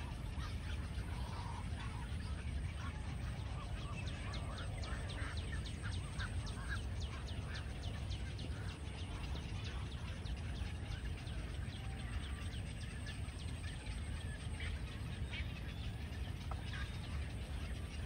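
A crowded colony of cormorants and other waterbirds calling: a din of many short overlapping calls and rapid clicking chatter, busiest a few seconds in, over a steady low rumble.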